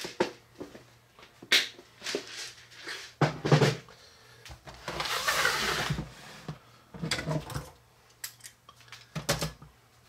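Tools and plastic parts handled and cleared off a tabletop: a series of sharp clacks and knocks, with a longer rattling scrape about five seconds in as the plastic tool bin is moved away.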